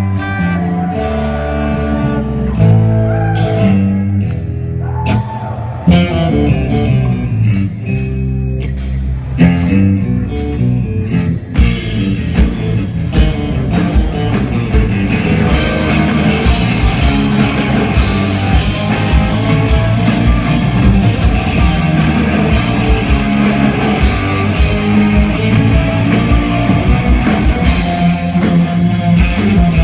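Live rock band playing, recorded from the audience: a sparse guitar-led opening with steady ticks, then the full band with drums comes in about eleven seconds in and plays on loudly.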